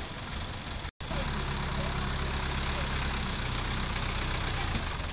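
Sonalika tractor's diesel engine running under load as it drives through deep mud. The sound cuts out briefly about a second in, then returns louder and steady before easing near the end.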